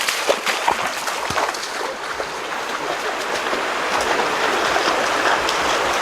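Water splashing and sloshing, a few sharp splashes in the first second or so, then a steady rush of moving water.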